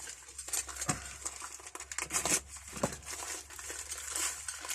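Packaging crinkling and rustling as it is handled and unwrapped, with a few light knocks.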